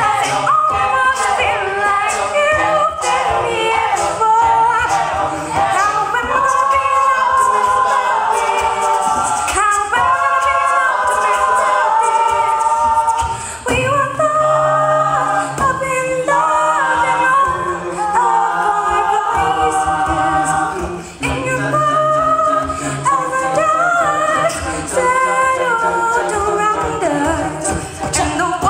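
Mixed-voice a cappella group singing a pop song in harmony with a female lead, a sung bass line and vocal percussion; the sound drops out briefly twice, about 13 and 21 seconds in.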